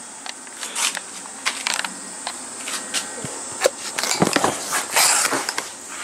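Cardboard shipping box being opened and handled: irregular rustles, scrapes and taps of cardboard and packing, with a longer rasping rustle about four to five seconds in.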